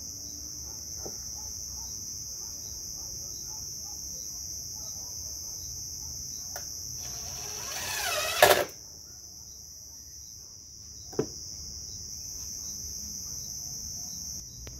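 Steady high-pitched insect chirring throughout. About seven seconds in, a DeWalt 20V cordless drill runs for a second or so, its pitch rising, ending in a sharp knock, the loudest sound here.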